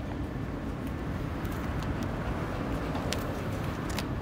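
Steady low rumble of outdoor background noise, with a few light clicks scattered through it.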